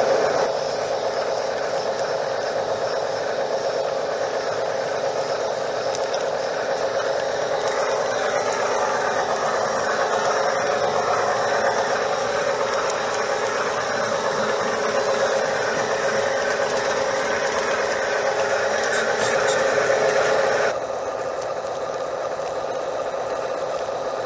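Garden-scale model train running along its track, heard from on board: a steady mechanical rattling and whirring of wheels and drive. About 21 seconds in the sound drops suddenly to a quieter, duller run.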